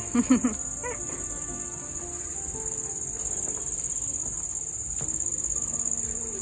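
Crickets chirping in a steady high-pitched drone, with faint music in the background. A short voice cuts in loudly just at the start.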